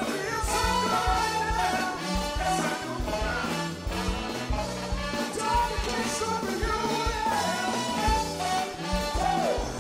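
Live band playing an upbeat soul number, with a steady drum beat, a moving bass line and melody lines on top.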